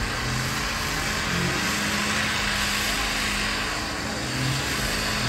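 Lifted mud truck's engine running hard at steady high revs, loud and unbroken, with its tires spinning on the pad.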